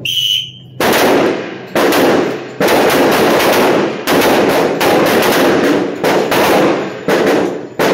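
A short whistle blast, then a volley of semi-automatic pistol shots from several shooters on the firing line, overlapping and echoing loudly in an indoor range.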